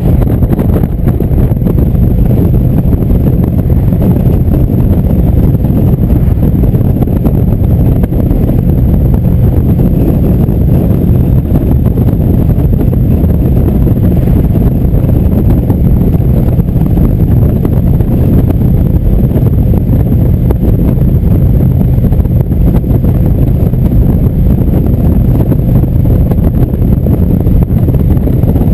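Indian motorcycle's V-twin engine running steadily at highway cruising speed, mixed with wind rushing over the microphone.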